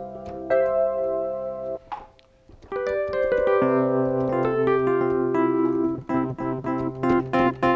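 Yamaha MX49 keyboard playing an electric piano patch. A held chord stops about two seconds in. After a short pause a stepping melodic line begins over a held bass note, then turns into short repeated chords.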